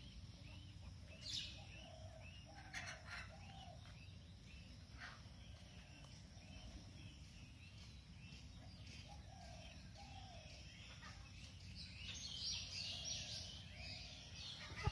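Birds chirping and calling outdoors, a mix of short high chirps and shorter lower calls, over a steady low background noise. A quick run of high chirps comes about twelve seconds in.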